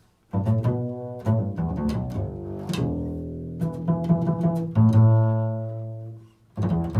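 Double bass plucked pizzicato with the fingers: an improvised run of low, ringing notes starting about a third of a second in, with a short break near the end before one more note.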